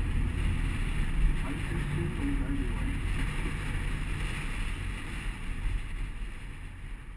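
Wind rushing over a car-mounted GoPro with the low rumble of the moving car, a steady noise that fades out near the end.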